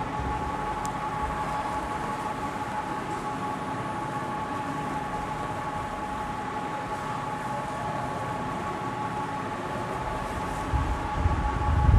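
Steady background hum: two high steady tones over an even hiss. A few low bumps come in near the end.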